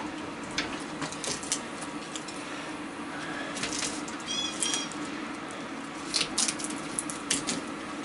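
Light metallic clicks and scrapes of a pick working copper winding wire out of a ceiling fan motor's stator held in a bench vise, over a steady hum from a running electric fan. A short high chirp comes about four and a half seconds in.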